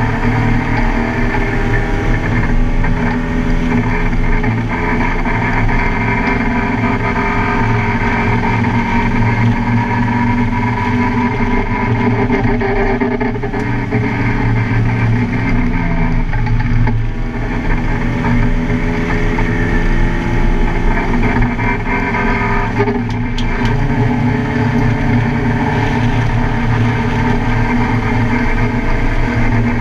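Car engine running hard around a race track, its pitch rising and falling as it accelerates, lifts off and changes gear, with steady road and wind noise underneath.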